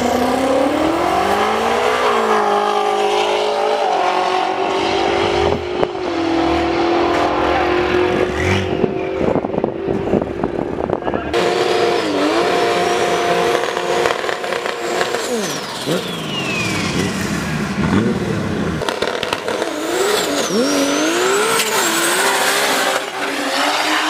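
Car engines revving and accelerating hard, the engine note climbing and dropping several times, with a high squeal sliding up and then down around the middle.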